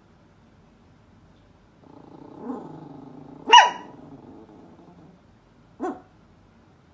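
Poodle growling low for about three seconds, with barks on top: a short bark about two and a half seconds in, a loud sharp bark a second later, and one more short bark near the end.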